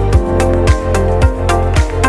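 Electronic background music with a steady beat, about two beats a second, over a sustained bass.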